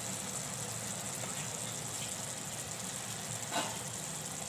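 Thick crab and coconut masala simmering in an open kadai, a steady low hiss and bubbling of the gravy as it cooks. There is a brief tap about three and a half seconds in.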